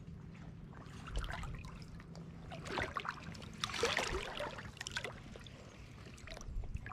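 Water splashing and dribbling in shallow lake water, in irregular bursts that are loudest about four seconds in, over a faint steady low hum.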